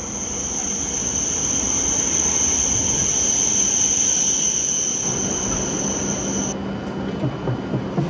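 Train running with a steady high-pitched squeal over the rumble of the ride; the squeal cuts off suddenly about six and a half seconds in.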